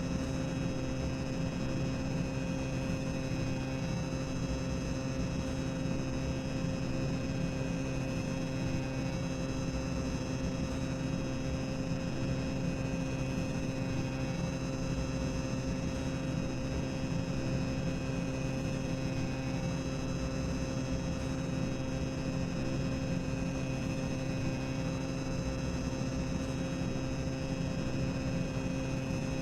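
Boiler-room machinery ambience: a continuous low rumbling hum with several steady droning tones over an even hiss, unchanging throughout.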